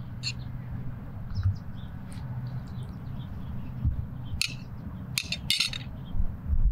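Metal spoon scraping and clinking against a plate and into hollowed tomatoes as minced-meat filling is spooned and packed in, with a few sharp scrapes in the second half. Faint bird chirps in the background.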